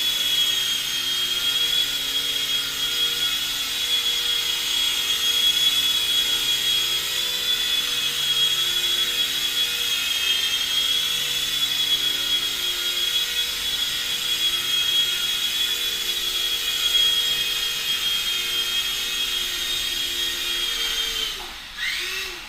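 Blade mCX2 micro coaxial electric RC helicopter flying, its motors giving a steady high whine over a lower rotor hum. Near the end the motors spool down, the pitch falling, and the sound dies away.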